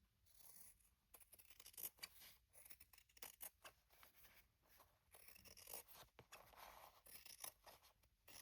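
Fabric scissors snipping faintly in short, irregular cuts, trimming overhanging fabric scraps off the edge.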